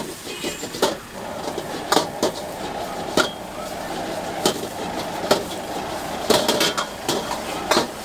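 Metal ladle and spatula clanging irregularly against a carbon-steel wok while rice noodles are stir-fried, about a dozen sharp strikes over a steady frying hiss.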